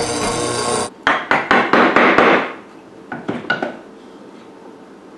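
Benchtop hollow-chisel mortiser running and boring into an ash leg, cut off abruptly about a second in. Then a turned wooden mallet strikes a chisel in quick succession, about half a dozen blows, followed by a few lighter taps, cleaning out the corners of the mortise.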